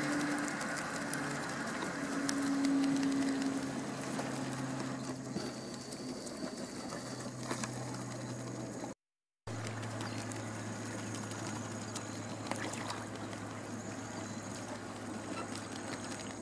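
Steady low hum of a distant motor over outdoor background noise, its pitch shifting a little at each cut.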